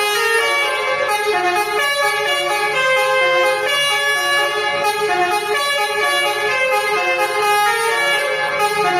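Telolet multi-tone bus horn, driven by a melody module, playing a tune as an unbroken run of stepped horn notes.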